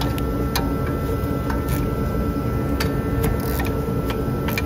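Hand ratchet clicking in scattered, irregular bursts as a socket on an extension backs out the 10 mm bolt holding the oil pickup tube, over a steady low hum.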